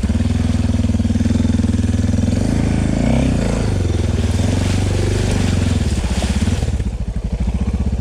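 Suzuki DR650's single-cylinder engine running under throttle as the bike wades through a river, its pitch rising and falling about three seconds in, then easing off near the end.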